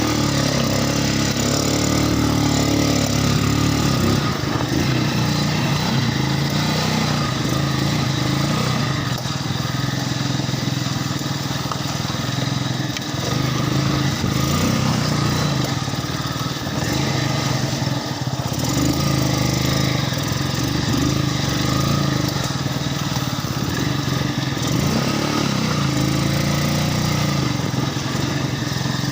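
A vehicle engine running steadily at a fairly constant speed, with a brief waver in pitch a couple of seconds in.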